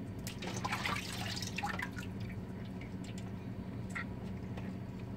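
Water splashing and dripping in a stainless bowl in the sink as a milkfish is rinsed and cleaned by hand, busiest in the first two seconds, then a few small clicks and drips. A steady low hum runs underneath.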